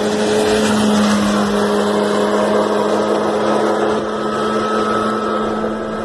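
Ski-Doo Elite twin-track snowmobile with a Formula 700cc two-stroke twin engine running at speed as it drives past. It is a steady, high engine note, loudest about a second in, then slowly fading as the sled pulls away.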